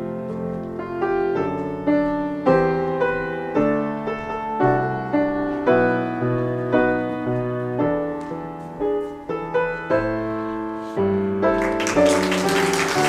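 Solo piano music, a slow run of struck notes each fading after it is played. Near the end, applause breaks out over the piano as a row of learners finishes collecting their certificates.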